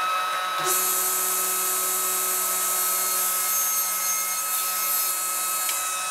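Grizzly G0623X sliding table saw running at full speed with a steady whine. A hiss sets in about a second in and stops shortly before the end: the blade is making a steep miter cut through a piece of scrap wood.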